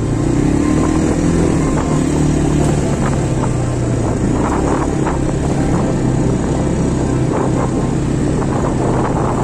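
Quad bike (ATV) engines running steadily as they ride along a dirt trail, a loud low drone with scattered short clatters from the bumpy ride.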